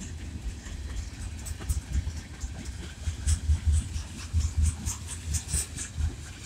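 Freight train cars rolling past: steel wheels on the rails make a low, uneven rumble, with sharp clicks and clacks over the rail joints that come thicker in the second half.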